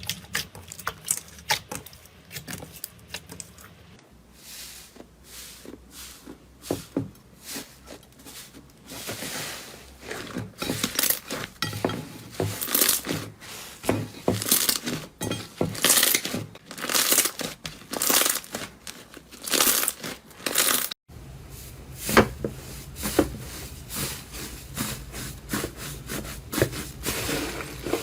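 Slime being squeezed and pressed by hand, making irregular crackling clicks and pops. The pops are sparse at first and come thick and fast from about a third of the way in.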